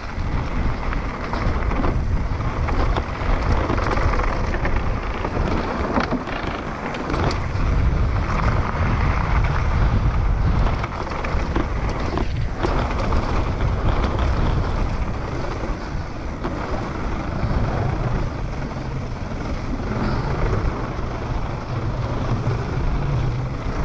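Downhill mountain bike riding fast over a rough dirt-and-rock trail: tyres rumbling over the ground with scattered knocks and rattles from the bike, and wind buffeting the action camera's microphone.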